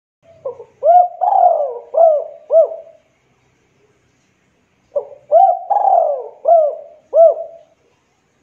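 Spotted dove cooing: two phrases about four and a half seconds apart. Each has a short lead note, an arched coo, a longer falling coo, then two more arched coos.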